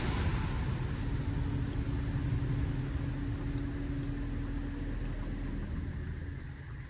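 LaserWash 360+ touchless in-bay car wash machinery running: a steady rumble and hiss that slowly fades. A steady hum comes in about a second in and stops about a second before the end.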